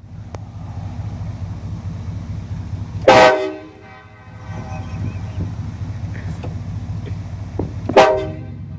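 Nathan Airchime K5LA five-chime train horn fitted to a car, sounding two short, very loud blasts, one about three seconds in and one about eight seconds in, over a steady vehicle rumble.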